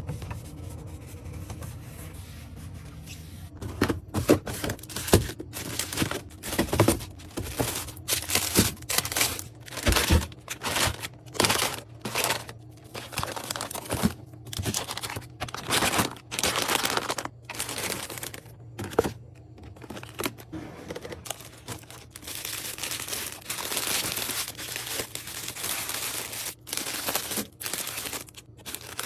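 Plastic packaging crinkling and rustling as items are handled and unpacked, in irregular bursts after a quieter start, turning into a denser, continuous rustle near the end.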